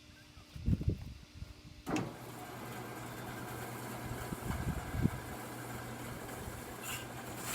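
Homemade band sawmill running, its motor humming. About two seconds in the sound jumps suddenly to a steady, louder hiss over a low hum as the band blade starts its cut through the log.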